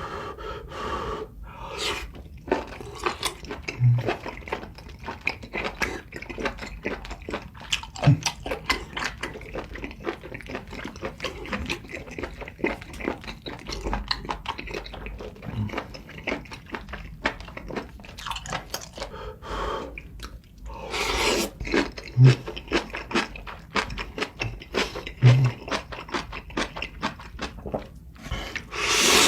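Close-miked eating of spicy seafood ramen with kimchi: steady wet chewing, full of small crunches and mouth clicks, with a few soft low thumps and a short louder rushing noise about twenty-one seconds in.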